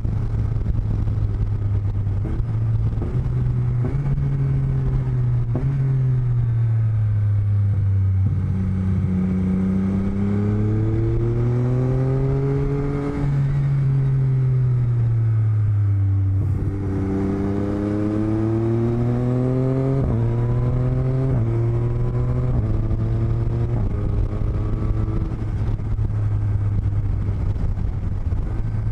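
Motorcycle engine picked up by microphones in the rider's helmet lining. The revs climb with quick drops at gear changes, rise smoothly, fall away, then climb through several more gear changes. A steady rushing noise runs underneath throughout.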